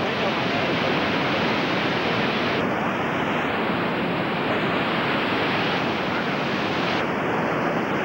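The Iguazu Falls pouring over their brink at close range: a dense, steady rushing of falling water.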